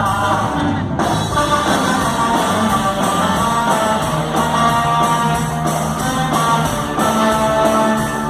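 Live rock band playing, with guitar over a steady drum-kit beat; the music shifts abruptly into a new passage about a second in.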